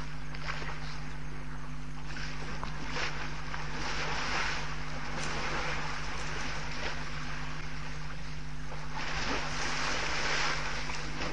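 Water splashing and sloshing as African elephants wade in a shallow waterhole, swelling twice, over a steady low electrical hum from the camera's microphone line.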